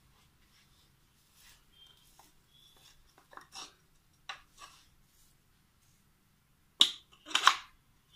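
Hands handling the metal housing of a small water-purifier pump motor that is not running. Scattered light clicks and rubs give way to a sharp knock near the end, followed at once by a short scraping rub.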